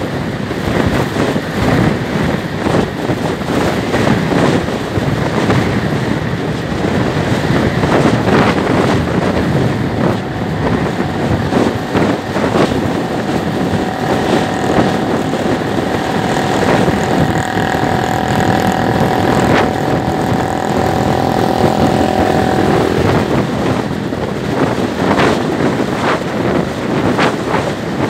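Wind buffeting the microphone over the running engine of a Suzuki step-through scooter at cruising speed. A faint steady whine rises out of the noise for several seconds in the middle.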